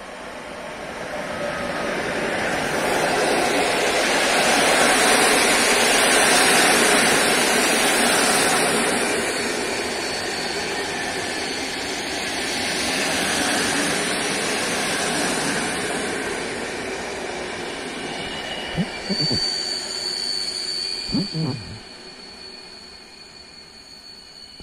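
Electric-locomotive-hauled passenger train passing along the platform at speed: the rumble of wheels and carriages on the rails builds over the first few seconds, peaks, and then eases as the coaches run by and recede. A steady high whine comes in over the last few seconds.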